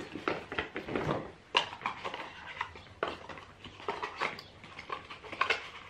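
Skincare product packaging being handled and sorted: irregular small clicks, taps and knocks of containers and boxes, the sharpest about a second and a half in.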